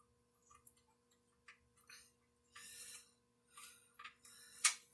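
Faint, irregular clicks and short scrapes of a socket wrench being worked on a bolt.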